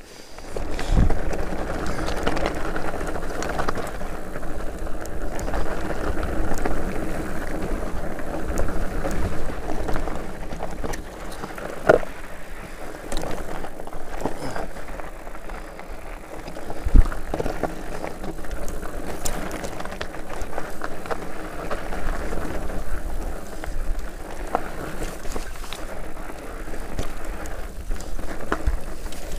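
Enduro mountain bike descending a rocky, gravelly trail: a continuous rattle and crunch of knobby tyres over loose stones, with the bike clattering. Sharp knocks come where the wheels hit rocks, the loudest about seventeen seconds in.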